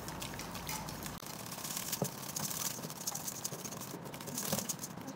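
Wire balloon whisk beating a thick cream cheese and butter mixture by hand in a stainless steel bowl: quick, irregular clicks and scrapes of the wires against the metal bowl.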